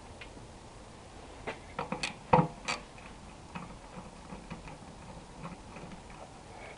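Small metal clicks and knocks from a hand tool and bolts being handled while the filler-ring bolts are undone on a motorcycle fuel tank. A quick cluster of sharper knocks comes about a second and a half in, the loudest just after two seconds, then scattered light ticks.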